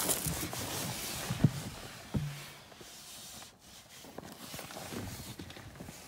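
Footsteps and a couple of sharp knocks, then quieter handling noise after about two seconds. No engine is running.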